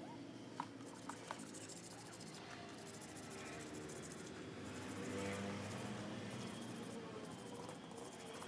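A few light metal clicks in the first second and a half, then soft handling and scraping as a motor-scooter cylinder block is pushed down onto the engine crankcase, over a faint steady background.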